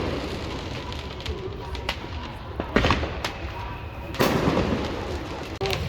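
Fireworks going off: two sharp bangs, about three and four seconds in, each ringing on briefly, over a steady background din.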